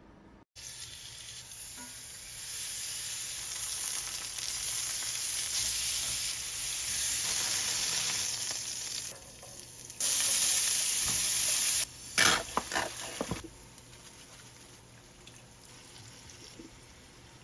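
Food sizzling as it fries, a steady hiss that swells louder for a couple of seconds and then cuts off suddenly. A short run of clattering knocks follows about twelve seconds in.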